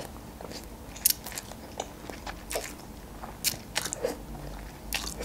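Close-miked eating of instant noodles: wet chewing with a run of short, sharp mouth clicks and smacks, several of them louder than the rest.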